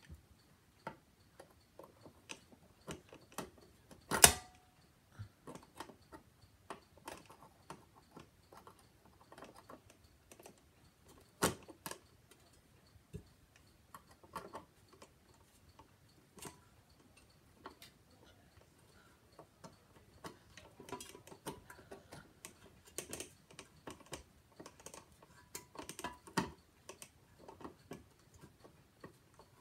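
Irregular light clicks and taps of ceiling-fan parts and tools being handled during assembly, with a sharp knock about four seconds in and another about eleven seconds in.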